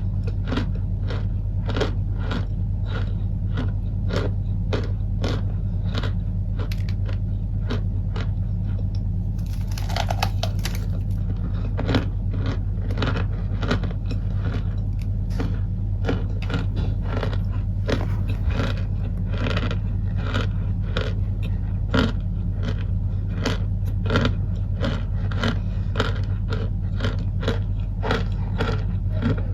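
Packed cornstarch crunching over and over, about two to three crisp crunches a second, with a steady low hum underneath.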